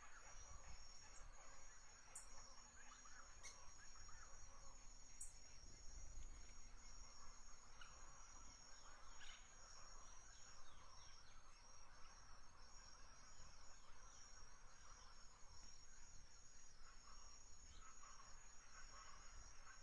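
Near silence: a faint, steady high-pitched whine with scattered faint chirps and a few light ticks.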